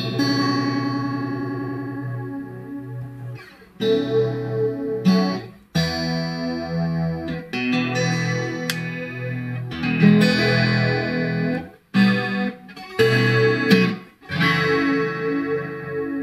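Electric guitar played through an Electro-Harmonix Deluxe Electric Mistress flanger: about seven chords, each struck and left to ring. The flanging is thin and too subtle, not washy, with a little clipping, a sign of the pedal's failing Reticon SAD1024A bucket-brigade delay chip giving a weak output.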